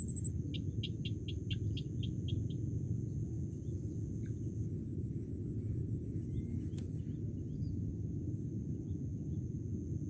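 Outdoor field ambience: a steady low rumble, a continuous high insect whine, and a quick run of about nine short chirps in the first two and a half seconds, fading out.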